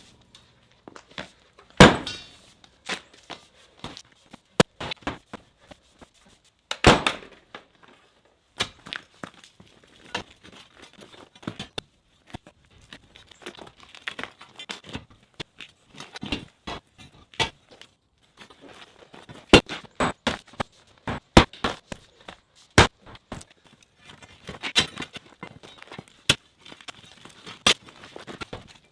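Concrete being broken out by hand with a sledgehammer and spud bar: irregular sharp knocks and thuds with smaller clatters of debris in between, and a few much louder blows scattered through.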